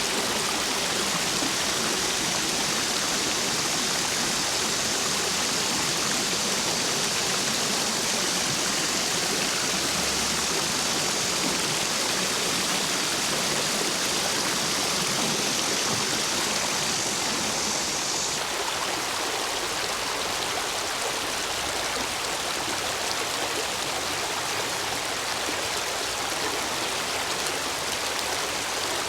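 Stream water rushing over and around stepping stones, running high after heavy rain, a steady even rush. About two-thirds of the way through the sound changes abruptly, losing some of its hiss and becoming a little softer.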